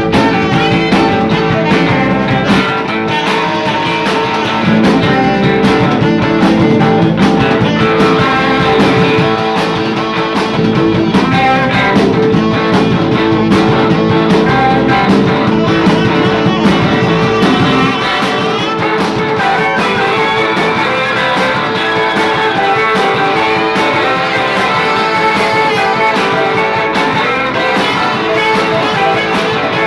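Live rock band playing: electric guitars, electric bass, drums and saxophone. A little past halfway the bottom end thins out and the band gets slightly quieter.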